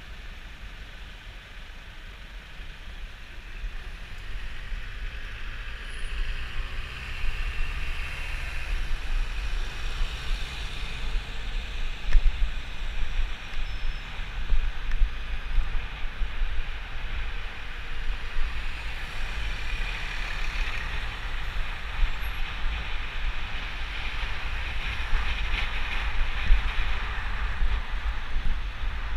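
Wind buffeting the microphone of a moving two-wheeler, mixed with road noise. It grows louder a few seconds in as the rider pulls away from a stop at the lights, then stays gusty while riding.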